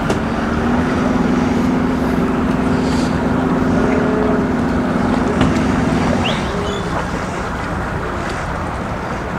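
A boat engine running at low speed with a steady hum that fades out about six seconds in. A single sharp click sounds just before the hum fades.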